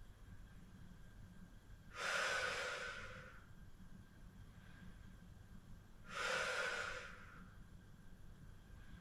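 A woman breathing out hard during an abdominal exercise: two long, hissy exhalations about four seconds apart, each starting sharply and trailing off.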